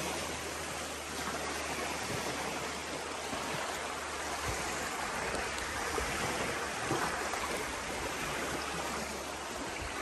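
Creek water rushing steadily, with a few faint knocks.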